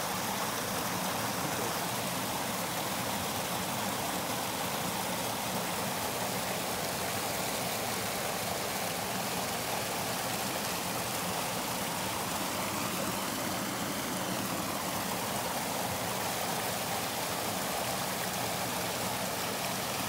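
Creek water rushing steadily as it spills over a small concrete weir into a shallow channel.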